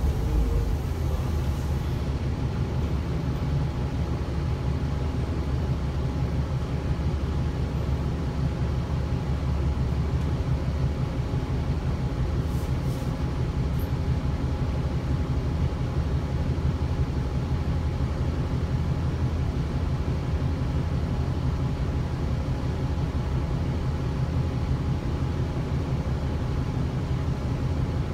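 Gillig transit bus heard from inside the passenger cabin: a steady low engine and drivetrain rumble, with a faint steady hum above it.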